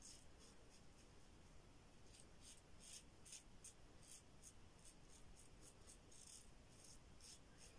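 Double-edge safety razor, a Yuma closed-comb razor with a Derby blade, cutting stubble on the upper lip in short strokes. Faint, quick scraping, a few strokes a second.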